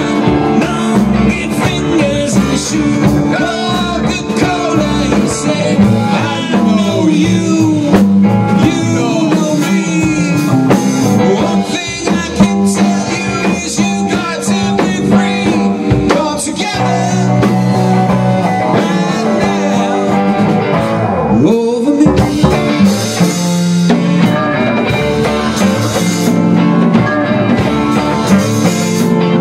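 Live blues-rock band playing loudly: two electric guitars over a drum kit, with a man singing.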